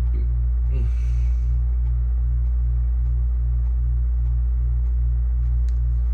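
Macintosh Classic's 1.44 MB SuperDrive floppy drive formatting a high-density disk. It makes a steady low pulsing hum, about three pulses a second, with faint regular clicks of the head stepping from track to track.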